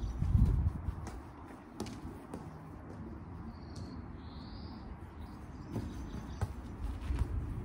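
Footballs being dribbled and stopped with the feet on a grass lawn: scattered soft taps and thuds. A brief low rumble comes at the start, and a bird chirps briefly in the middle.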